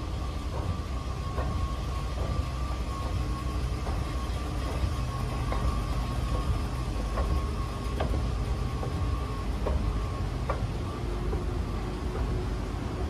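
Escalator running while being ridden: a steady low rumble with a constant high hum and occasional faint clicks from the moving steps.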